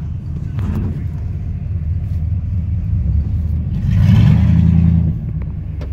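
Low engine rumble and road noise heard from inside a moving vehicle's cabin, with an engine revving louder about four seconds in and easing off about a second later.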